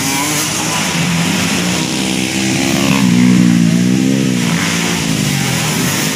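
Racing dirt bike engines revving hard, the pitch rising and falling with throttle and gear changes, loudest about three to four seconds in as the bikes pass close.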